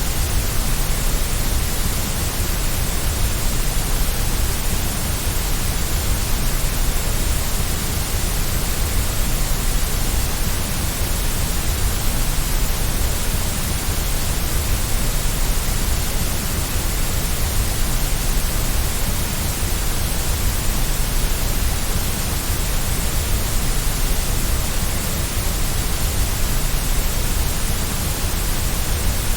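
Steady white noise: an even, unchanging hiss across all pitches, with a strong low rumble underneath.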